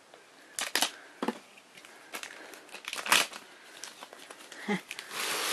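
Blind-box packaging being handled: scattered sharp crackles, the loudest about three seconds in, then a denser run of crinkling near the end.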